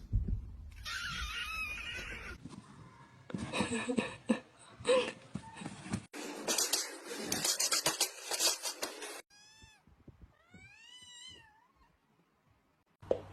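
Domestic cat meowing, including a long meow that rises and then falls about ten seconds in, after stretches of rustling and knocking noises.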